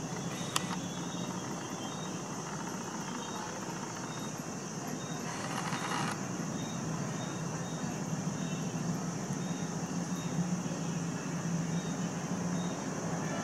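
Steady outdoor night-time background noise: a low hum with a constant high-pitched drone over it, a brief click about half a second in, and a short rush of noise around five to six seconds.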